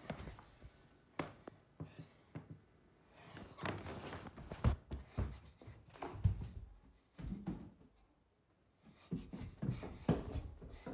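Handling noise of a handheld phone being carried and moved about: rustling and scattered knocks and thumps.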